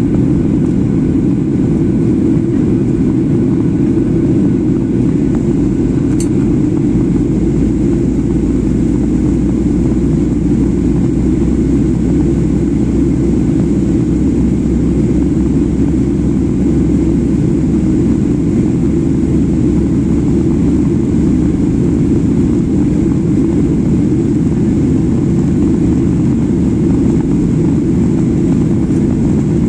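Jet airliner cabin noise in flight: a loud, steady, low rush of engines and airflow that does not change, with one short click about six seconds in.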